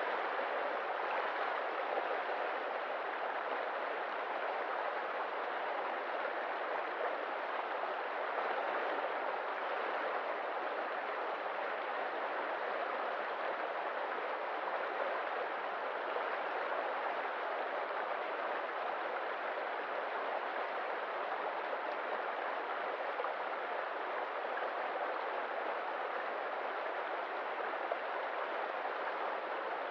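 Stream water running steadily, an even rushing sound with no breaks.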